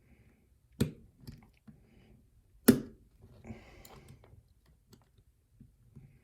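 Sharp clicks and knocks of small lock parts and tools being handled while a challenge lock is disassembled: two louder knocks, one under a second in and one near three seconds, with fainter ticks and a brief scraping in between.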